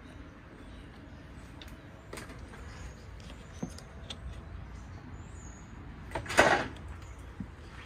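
Scattered light knocks and scuffs of someone moving through a debris-strewn hallway, with one louder scraping rush lasting about half a second, about six seconds in. Faint bird chirps come in from outside.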